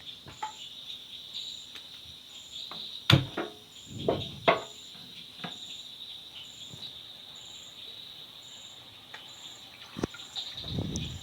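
Crickets chirring steadily, with an evenly repeating higher pulse, and a few sharp knocks about three and four and a half seconds in.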